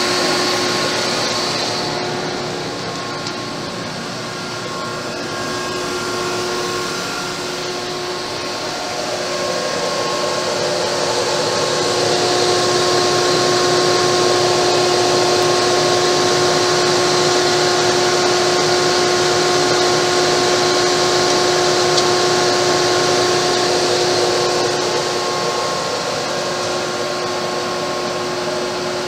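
Gardner 2H30-30 double disc grinder running idle, its electric spindle motors turning the grinding wheels: a steady whirring hum with several steady tones over a hiss, louder from about twelve seconds in.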